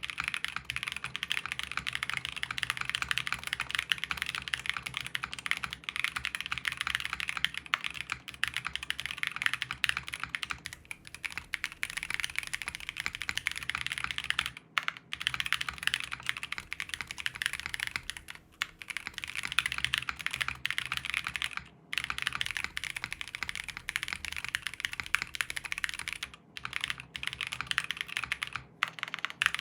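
Continuous typing on a Swagkeys Shelby80 custom tenkeyless mechanical keyboard with stock unlubed Bolsa Supply Zaku switches, an aluminium plate, plate foam and CRP Tulip keycaps, a steady stream of key clacks broken by a few brief pauses. It is picked up first by a phone's microphone, then from about ten seconds in by a desk condenser microphone.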